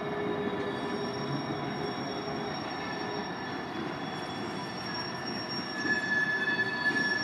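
Canadian National freight train rolling through a junction, steel wheels squealing against the rails: several steady high squeal tones over the rumble of the passing cars. The tones shift as cars pass, with a lower squeal fading out partway through and a higher one coming in, and it gets louder near the end.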